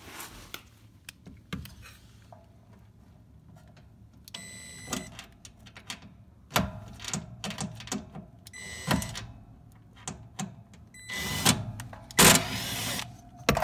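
Hands and tools working at a refrigeration compressor's electrical mount to remove a 3-in-1 relay, start capacitor and overload unit: scattered clicks, knocks and rattles, three short buzzes about four, nine and eleven seconds in, and a loud scraping noise near the end.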